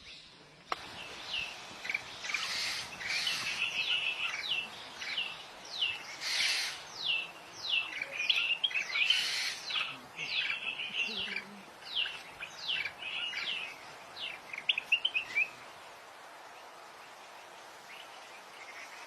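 Birds calling: a rapid run of short, downward-sliding whistled notes mixed with several harsh, rasping calls. The calling stops about three quarters of the way through, leaving only background noise.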